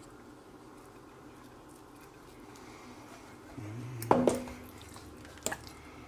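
Kitchenware knocking off camera: a short cluster of sharp clinks with a brief ring about four seconds in, then a single click about a second later, over quiet room tone.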